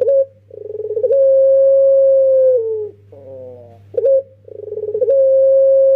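Young puter pelung, a collared dove, cooing twice in its long-drawn pelung style. Each phrase opens with a rolling note, swells into one long held note that drops at the end, and trails off in a short falling note.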